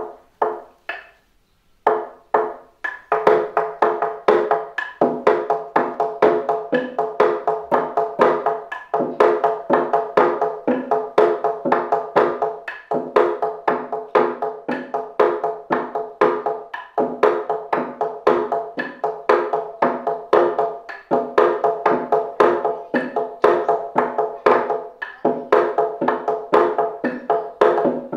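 Gejog lesung: several players striking wooden pestles against a hollowed wooden rice-pounding trough (lesung), making interlocking rhythms of pitched wooden knocks, several to a second. A few separate strikes open it, and the full dense pattern comes in about two to three seconds in.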